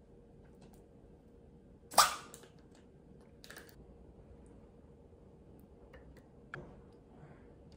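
Spoon and plastic Greek yogurt tub handled while yogurt is scooped out and spread on an apple slice: a sharp knock about two seconds in, a smaller one a second and a half later, and a light click near the end.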